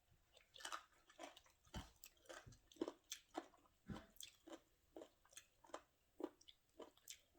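A person chewing food with soft, crunchy bites about twice a second, faint.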